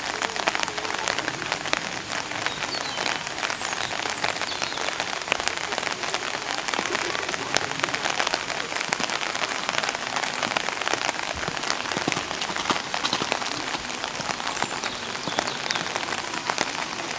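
Steady rain patter: a dense crackle of drops on a surface.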